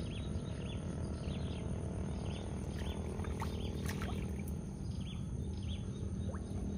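Small birds chirping in short, repeated calls, several a second, over a steady low background rumble.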